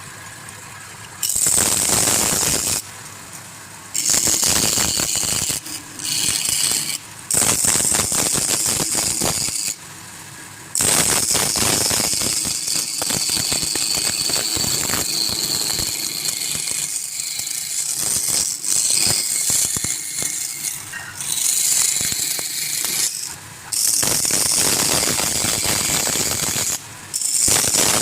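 Wood lathe with a turning tool cutting into the spinning wood: a loud, scratchy hiss of cutting, heard in several stretches that start and stop abruptly, the longest running about twelve seconds from about eleven seconds in.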